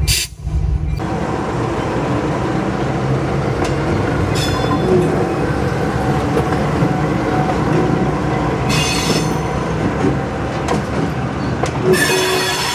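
Two four-axle GE B39-8E diesel locomotives rolling slowly past close by, their V12 engines running with a steady rumble. Wheel flanges squeal in short spells, about four seconds in, again around nine seconds, and loudest near the end.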